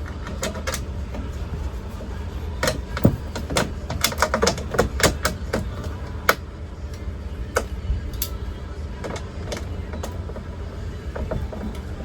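Irregular metal clicks and knocks of hand tools working on a truck door's window track, bunched together in the first half, over a steady low hum.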